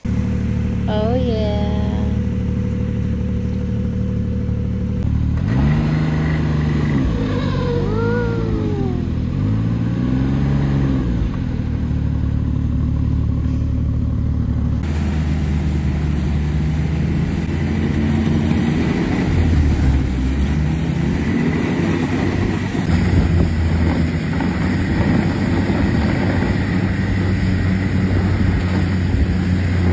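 Snowmobile engines running, revving up and down several times in the first half.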